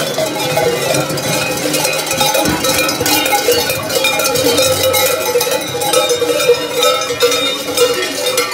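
Many large cowbells clanging and ringing without pause, shaken by masked carnival figures as they walk, with the strikes overlapping into a continuous din.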